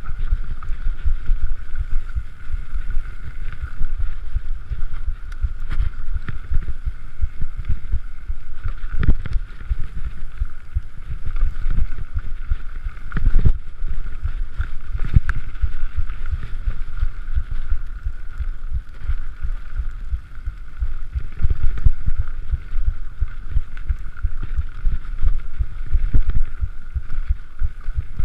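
Mountain bike riding fast down forest singletrack: wind buffeting the camera microphone and a constant rumble from the tyres and frame, with irregular knocks and rattles as it goes over bumps and roots. A steady high hum runs underneath.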